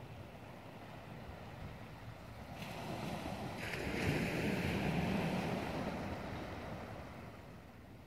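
Sea waves washing against shore rocks: one surge swells up a few seconds in, peaks, and fades away near the end, over a low wind rumble on the microphone.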